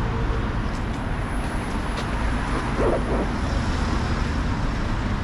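Steady city road traffic: a continuous rumble of cars passing on the street alongside. A short wavering pitched sound cuts through about three seconds in.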